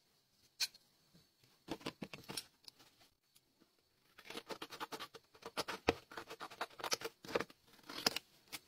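Small craft scissors snipping through a sheet of paper in a quick run of crisp cuts, mixed with paper rustling as it is handled. There is a single click about half a second in.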